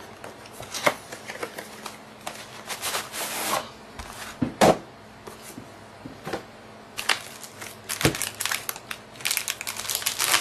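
Unpacking a Koolance GPU water block: the cardboard box opened and plastic bags and wrap crinkling against a foam tray, with scattered light knocks. Two louder thumps, one about halfway through and one about eight seconds in.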